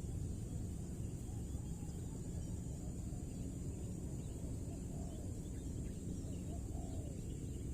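Outdoor rural ambience: a steady low rumble with a continuous high insect-like hiss, and a few faint, distant bird calls.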